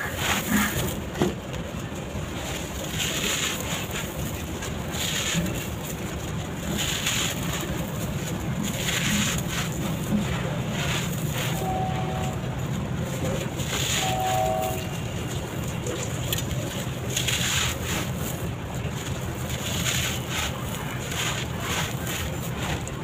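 Sand-cement bar crumbling, with pieces breaking off and falling onto the floor in crackly flare-ups every second or two over a steady rushing background.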